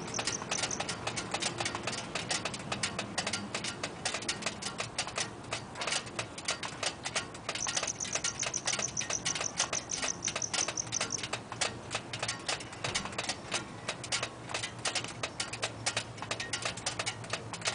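A car's catalytic converter and resonator ticking and pinging rapidly and irregularly as the hot exhaust metal cools and contracts after a drive. A thin, high steady whine joins in for a few seconds in the middle.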